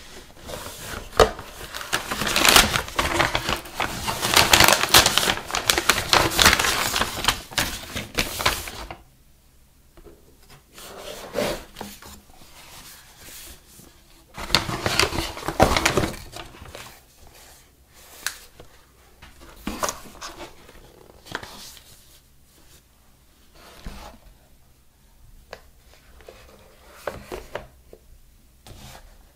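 Paper and cardboard packaging being handled: dense rustling and sliding of a paper insert and box lid for about the first nine seconds, then shorter rustles and light taps as cardboard product boxes are lifted out and set down.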